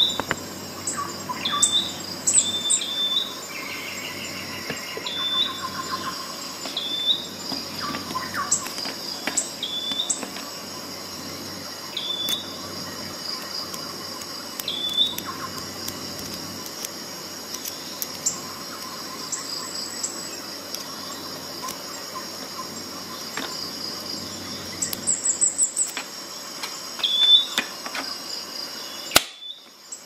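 A bird chirping over and over in short high calls, one every second or two, with scattered light clicks.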